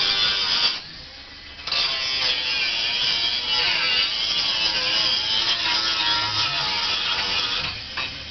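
A high-pitched motor running under load, with wavering pitch. It stops for about a second shortly after the start, runs again, and cuts out briefly near the end.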